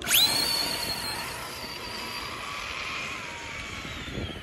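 Traxxas Slash 2WD electric RC truck launching from a standstill on a drag run. Its motor and gears give a sudden high whine that climbs sharply in the first fraction of a second, then holds and slowly fades as the truck speeds away.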